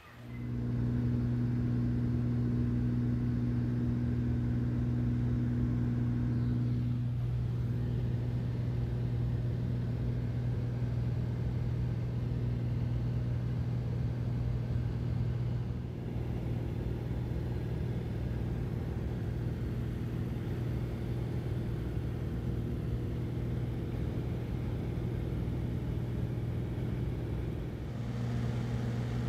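Small propeller plane's engine and propeller droning steadily, heard from inside the cabin, with slight shifts in tone and level a few times along the way.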